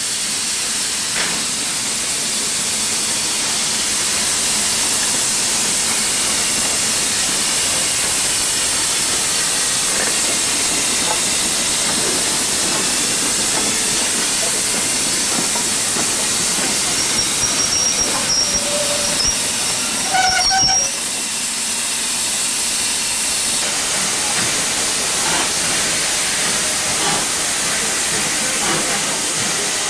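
Steady hiss of steam escaping from standing steam locomotives, with a few short, high whistle-like tones about two-thirds of the way through.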